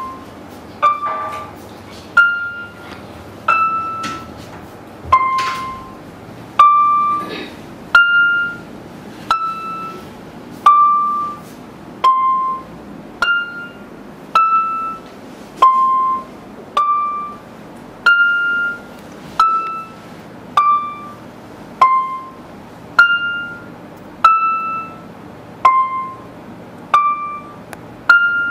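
Electronic keyboard playing a slow melody one note at a time, a note a little over every second, each note struck sharply and ringing out as it fades.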